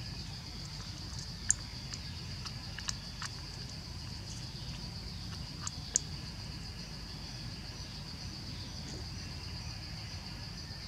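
Insects droning steadily in one high, even tone, over a low rumble, with a few short sharp clicks, the loudest about a second and a half in and at six seconds.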